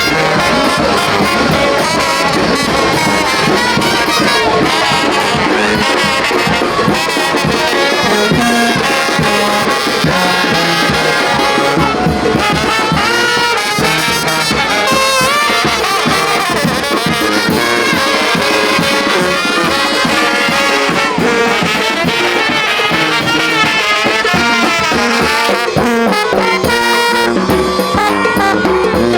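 Marching brass band playing, led by trumpets and trombones.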